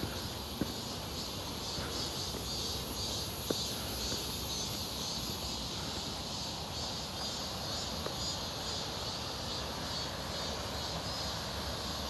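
Chorus of cicadas singing in the trees, a steady high buzz that pulses slightly, with a couple of faint taps in the first few seconds.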